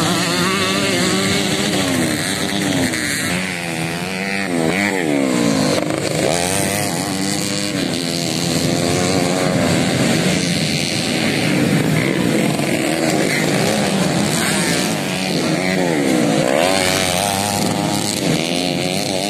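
Several small dirt-bike engines racing around a grasstrack circuit. The overlapping engines rev up and down in pitch as the riders accelerate and shift.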